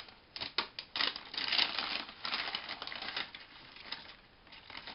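Hands rummaging in a shopping bag and handling packaging to get out a necklace: irregular rustling with quick clicks.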